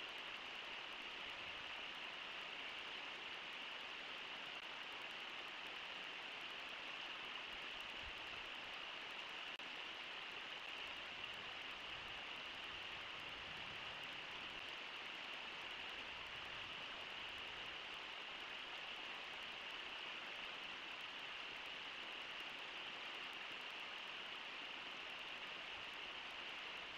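A fast, shallow river rushing over rocky riffles, heard as a steady, even hiss.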